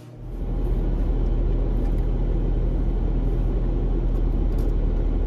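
Car engine running, a steady low rumble heard from inside the cabin, starting a moment in.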